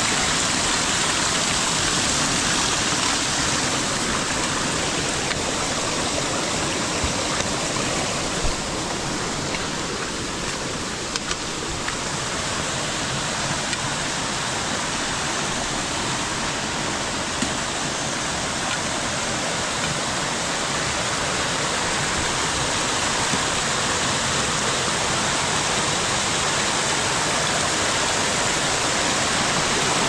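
Small forest stream rushing and splashing over boulders in short cascades, a steady loud rush of water. A few brief light knocks stand out over it near the middle.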